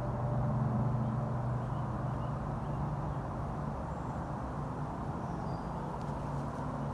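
Steady low drone of a distant engine or motor, with a faint high chirp about five seconds in.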